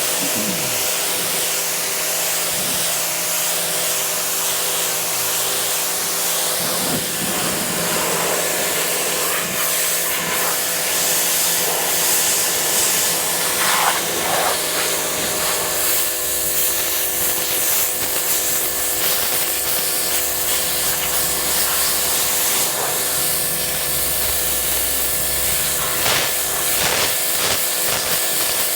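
Ryobi 2000 psi, 1.2 GPM electric pressure washer running steadily, its motor humming under the continuous hiss of the high-pressure water jet.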